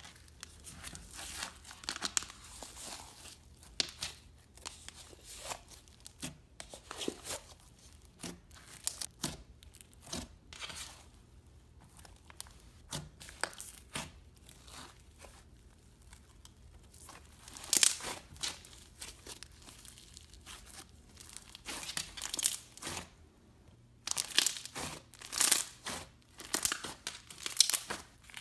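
Thick white slime with dark specks being squeezed, poked and pulled apart by hand, giving irregular bursts of crackling and tearing. The bursts are louder about two-thirds of the way in and again near the end.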